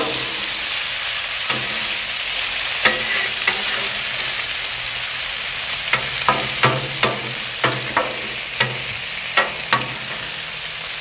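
Sliced potatoes sizzling in bacon grease on a Blackstone steel flat-top griddle, with a metal spatula scraping and clacking on the griddle top as the slices are pushed and turned. The clacks come about a dozen times, mostly in the second half.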